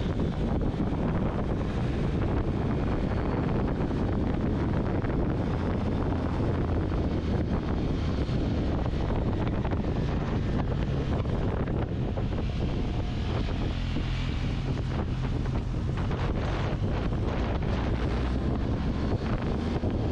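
Wind rushing over a motorcycle-mounted camera microphone at riding speed, with the motorcycle's engine humming steadily underneath.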